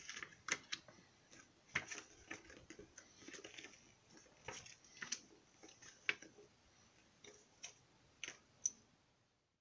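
Paper and cardboard packaging being handled: an instruction leaflet unfolded and crinkled, with a quick irregular string of sharp clicks and crackles that dies away near the end.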